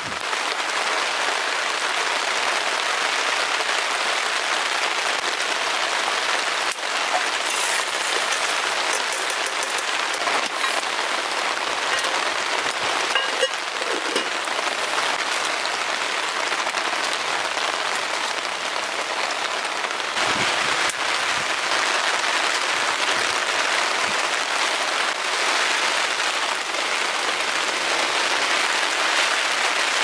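Heavy rain falling steadily, with a few short crackles from the wood fire.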